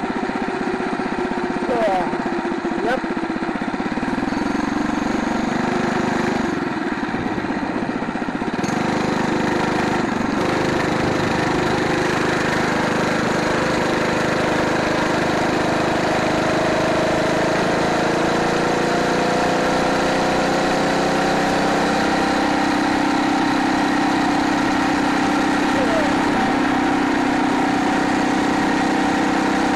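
Phatmoto Rover gas bicycle's small four-stroke engine running under way on the road. Its pitch dips briefly a few seconds in, then climbs gradually through the middle as the bike picks up speed, and holds steady near the end.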